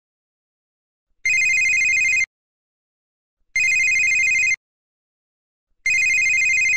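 Telephone ringing: three electronic rings, each about a second long with a fast warble, spaced a little over two seconds apart.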